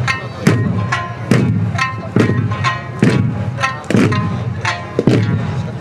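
Okinawan Eisa music: taiko drums struck together on a steady beat, about seven strokes a little under a second apart. Each stroke has a plucked, ringing string tone with it, the sanshin accompaniment.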